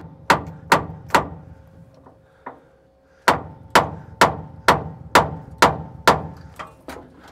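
Hammer blows, knocking the 1950s Euclid truck's starter to free it from a suspected bad spot: three quick strikes, a pause, then about eight more at roughly two a second.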